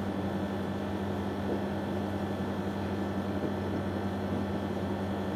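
Steady background hum and hiss of a room, with a low drone held on a fixed pitch and no distinct events.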